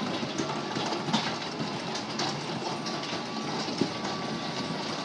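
Kiddie motorcycle carousel ride running: a steady rumble with rattling, clattering clicks from the turning platform and its ride vehicles. A faint steady whine joins a little over halfway through.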